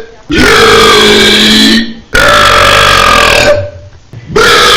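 Three long, loud belches in a row, each lasting about a second and a half and held at a fairly steady pitch. The third starts near the end and is still going.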